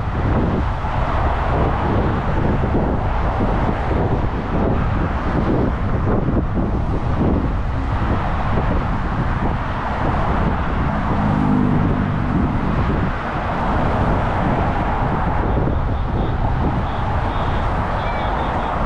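Steady road traffic noise of cars passing close by, mixed with wind buffeting the microphone. About eleven seconds in, one engine's hum stands out briefly.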